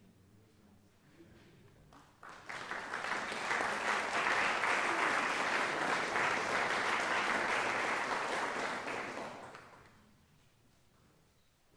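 Audience applauding. It starts suddenly about two seconds in, holds steady, then dies away near the end.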